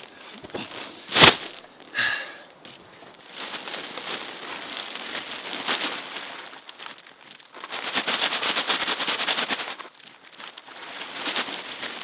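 Sacks of soil being handled and emptied into a wooden raised bed: crinkling and rustling of the sacks with soil pouring out, in several long stretches. There is a sharp knock about a second in.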